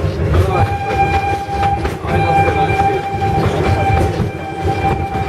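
Steam locomotive whistle sounding in two long blasts, the first starting about half a second in and the second, longer one following a brief break near two seconds. Under it the train's running rumble and the clatter of the carriages continue.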